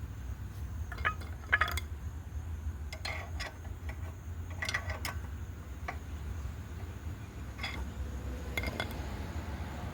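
Light metallic clinks and taps, a dozen or so at irregular intervals, as tools and engine parts are handled during a hand inspection of the valve train, over a steady low hum.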